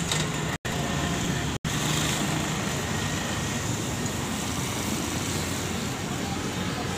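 John Deere 5045 D tractor's three-cylinder diesel engine running steadily. The sound cuts out briefly twice in the first couple of seconds.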